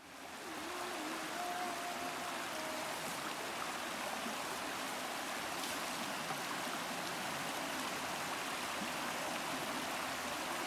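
Small stream running over rocks: a steady rush of flowing water.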